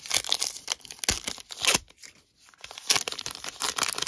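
A 2022 Topps Allen and Ginter trading card pack being torn open by hand, its crimped silvery wrapper crinkling and tearing. The sound comes in two spells of tearing and rustling, with a short pause about halfway through.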